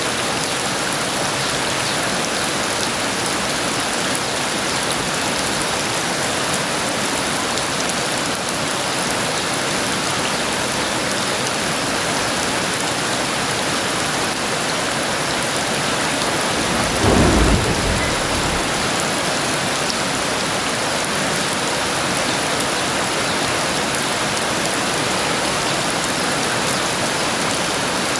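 Heavy rain falling steadily, with one short burst of thunder about seventeen seconds in.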